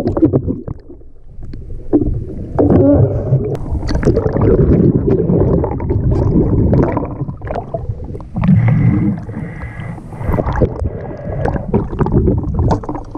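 Muffled water noise picked up by a camera underwater while snorkeling: sloshing and bubbling, with scattered knocks and clicks.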